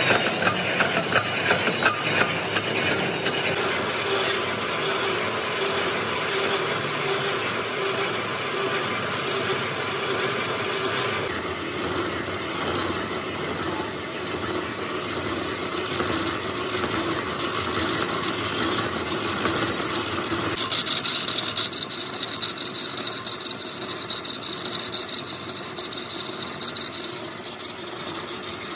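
Manual lathe turning a large spoked gear blank, the cutting tool facing the hub: a steady machine drone with a high cutting whine over it. The whine's pitch shifts suddenly about four, eleven and twenty-one seconds in.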